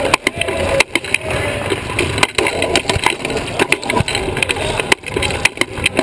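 Sports wheelchair rolling fast on a hardwood gym floor, heard up close from its frame: a steady rumble from the wheels with frequent sharp knocks and rattling clacks from the chair.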